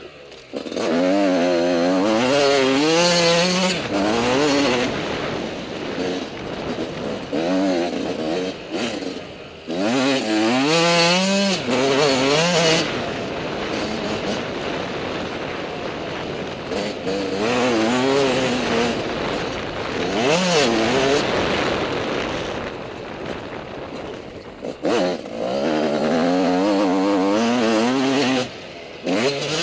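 Dirt bike engine heard close from the bike itself, revving up and dropping back again and again as the rider accelerates, shifts and rolls off, with wind rushing over the microphone.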